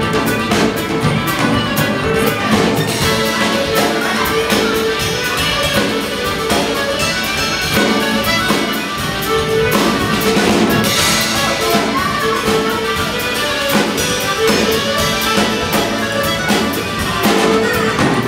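Live Finnish folk band playing with a steady drum-kit beat under guitars, bass and other instruments, in a concert hall. It is recorded on a small camera's microphone from the audience, so it sounds flat and lacks depth.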